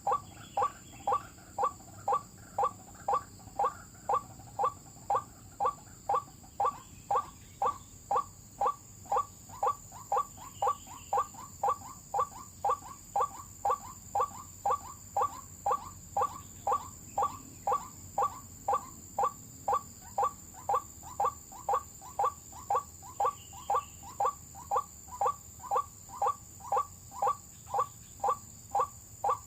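White-breasted waterhen call played back as an mp3 lure: a short note repeated very evenly, about twice a second, without a break.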